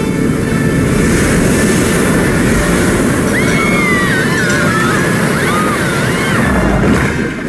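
Cartoon flash-flood sound effect: a loud, steady rush of floodwater and heavy rain as a wave breaks. About three seconds in, high wavering cries rise over the rush for a few seconds as the cows scream under the wave.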